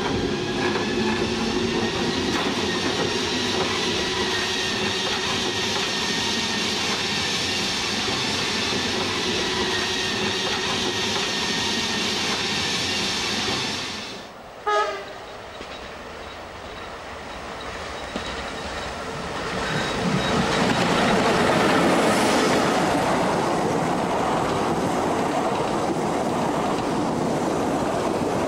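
Mariazellerbahn class 1099 electric locomotive pulling a narrow-gauge passenger train, running with a steady whine and hum over the wheel noise. About halfway there is a brief horn toot. Then a narrow-gauge train runs past, its wheel-on-rail noise swelling to a peak and staying loud.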